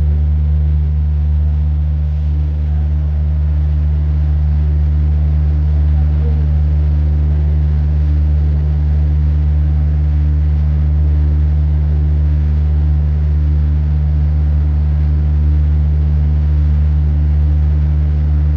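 Steady low engine drone, unchanging throughout.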